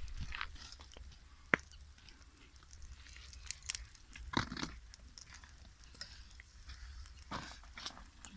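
Dry twigs and leaf litter crackling and snapping as a small wood fire is fed and tended, with one sharp snap about a second and a half in and short rustles about halfway and near the end.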